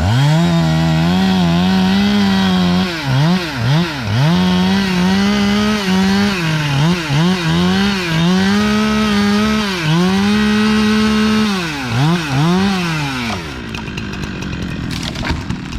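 Chainsaw running at full throttle, cutting, with several quick dips in engine speed as the throttle is eased and opened again. It winds down and stops near the end.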